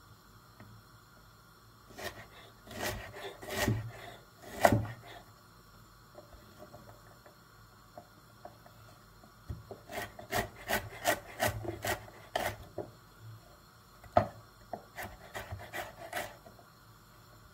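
Chef's knife dicing a white root vegetable on a wooden cutting board, the blade knocking on the wood in short runs of quick chops with pauses between.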